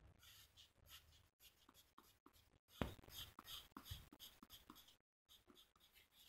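Faint scratching of a fine-tip pen on paper: short, quick cross-hatching strokes, with one louder tap about three seconds in.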